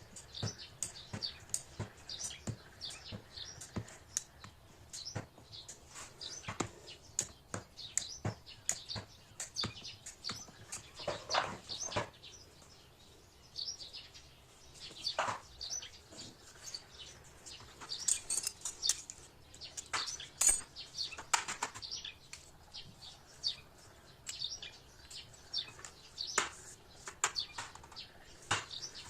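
Small birds chirping repeatedly in short high calls, mixed with scattered sharp clicks and taps.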